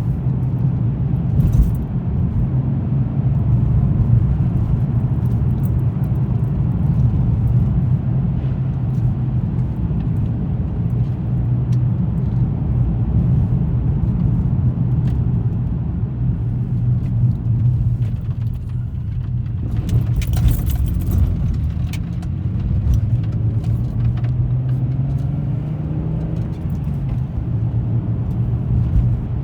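Car on the move: steady engine hum and road rumble, with scattered light ticks and a cluster of them about twenty seconds in. The engine note rises gradually a few seconds before the end.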